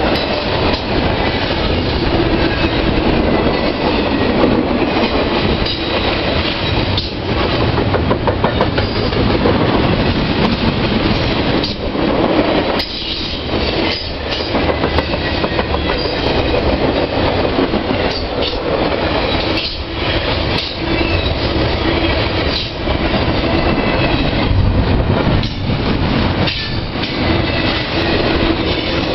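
CSX double-stack intermodal freight train passing close by: a steady rumble of steel wheels on rail with fast clicking as the wheels cross rail joints. The noise dips briefly every few seconds as the cars go by.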